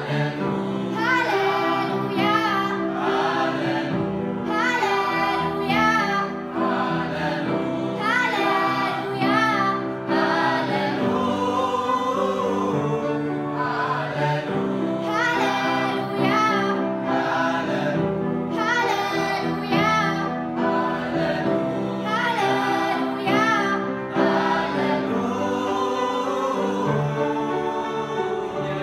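A small mixed choir of teenage boys and girls singing together without a break, several voice parts sounding at once.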